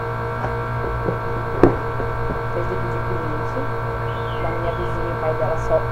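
Electric fan running with a steady motor hum, with a single sharp knock about a second and a half in.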